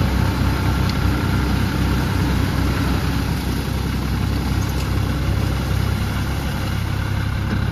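Diesel engines of a John Deere and a New Holland farm tractor running steadily, one towing the other on a chain through deep paddy-field mud.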